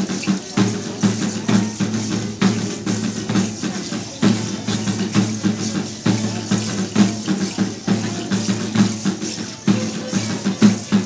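Live music for a traditional dance: drums and percussion keep a steady rhythmic beat under a held, pitched melody line.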